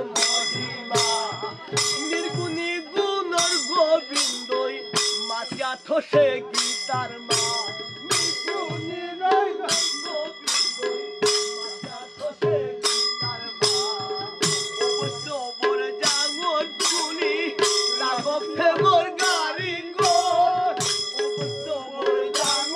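Music: ringing metal percussion strikes at about two a second over a steady drone note, with a wandering melody line on top.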